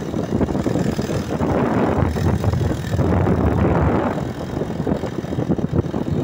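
Small motorcycle engine running under way on a rough dirt track, heard from on board, with wind rushing over the microphone, strongest in the first few seconds.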